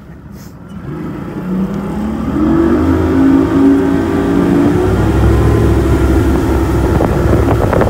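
Bass boat's outboard motor accelerating from low speed: its pitch and loudness rise over the first two or three seconds, then it runs steadily at speed.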